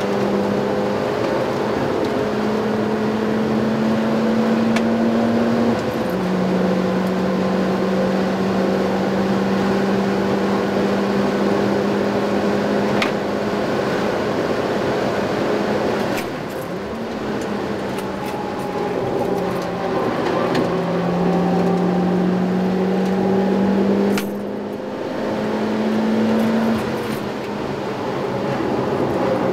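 Stock Mitsubishi Lancer Evolution IX MR's turbocharged four-cylinder engine running hard on track, heard from inside the cabin. Its steady note shifts pitch in steps several times and eases off briefly about halfway through and again near the end before pulling again.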